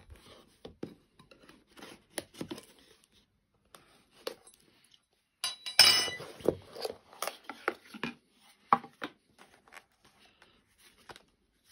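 Cardboard Samsung Galaxy Z Fold4 retail box handled on a hard countertop: scattered taps and knocks with rustling and scraping as its lid is worked off, the busiest and loudest stretch about six seconds in.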